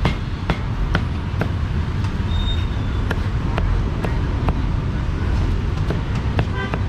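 Sharp cleaver knocks on a chopping block about twice a second, typical of roasted duck being chopped up, over a steady low rumble of street traffic.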